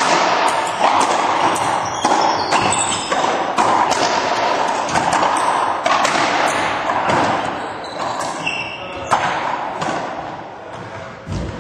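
A racquetball rally: the hollow rubber ball cracking off racquets and the court walls in quick irregular succession. Each hit echoes in the enclosed court. The strongest hit comes a little past the middle, and the hits die away near the end.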